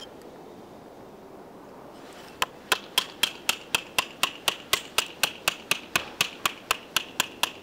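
A small knife being batoned through a piece of wood, splitting kindling: a wooden baton strikes the spine of the blade in a quick, even run of sharp knocks, about four a second, each with a brief ring. The knocking starts about two seconds in.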